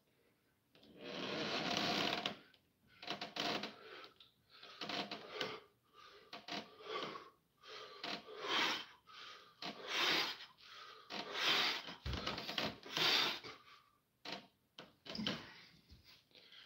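A man breathing hard with the effort of pull-ups: forceful, rhythmic exhalations about every second or so. There is a single dull knock about twelve seconds in.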